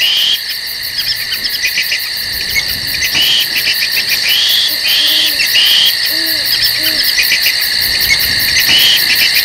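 Tropical forest ambience: a loud, steady insect chorus with repeated short bird calls, and three low hooting calls about five to seven seconds in.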